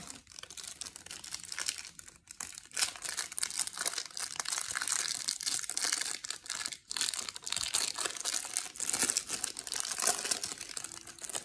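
Foil wrapper of a Select basketball card pack crinkling and tearing as it is handled and opened by hand: a dense run of crackling that breaks off briefly about two seconds and about seven seconds in.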